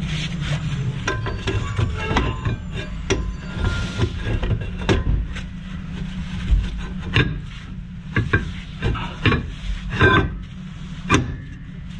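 Rear brake drum of a 2006 Toyota Camry being fitted back over the freshly adjusted drum-brake shoes, with repeated metal knocks and clacks and some scraping as it is worked into place.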